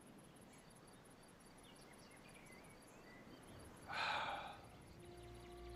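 Faint crickets chirping in a fast, steady high pulse, with faint bird chirps. About four seconds in comes a short breathy sound, and near the end a low drone and a held musical note begin.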